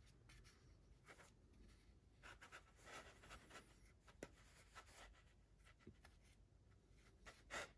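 Faint, irregular scraping of a small flexible plastic spreader pressing and smoothing body filler into the joint between a carved wooden decoy's head and body.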